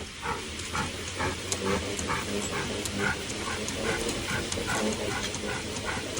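A dog lapping water from a bowl in a steady rhythm of about two to three laps a second.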